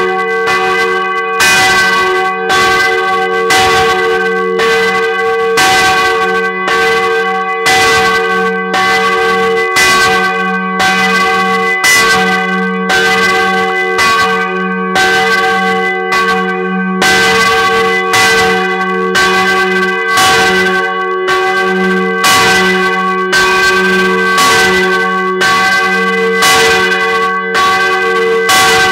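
Church bell in G-flat (ges'), the 785 kg Maria bell cast by F.W. Schilling of Heidelberg in 1950, swinging and struck by its clapper in a steady, even rhythm. Each stroke rings on into the next over a steady low hum, heard close up in the bell chamber.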